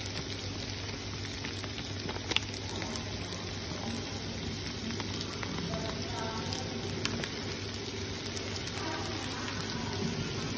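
Chicken neck pieces and carrot strips sizzling steadily in oil in a frying pan, with a single sharp click about two seconds in.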